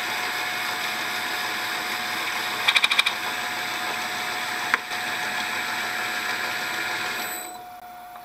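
Metal-working lathe running steadily with a boring tool taking light cuts in the bore of a plastic belt idler pulley, with a quick rattle of ticks about three seconds in. About seven seconds in the lathe is switched off and its noise dies away.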